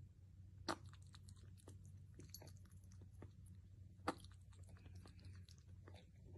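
Kitten lapping water from a ceramic bowl: faint, irregular wet ticks of its tongue, with two louder ticks, one just under a second in and one about four seconds in.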